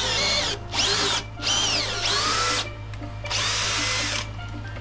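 A power drill with a long bit boring a carriage-bolt hole down through a spliced wooden beam joint. It runs in four short bursts, and the motor's pitch rises and falls with each trigger pull.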